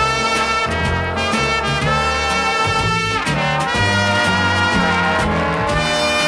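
Brass-led 1960s easy-listening band instrumental: trumpets and trombones playing over a bass line that steps from note to note.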